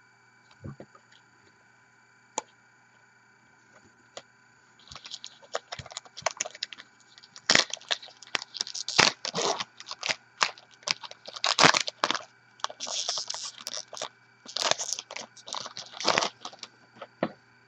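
Trading-card packaging and cards being handled: a few faint clicks, then, from about five seconds in, irregular bursts of crinkling and crackling.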